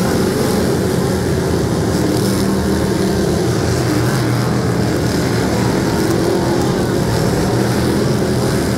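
A pack of dirt-track race cars running laps at speed: many engines blend into one loud, steady drone, with no break or lull.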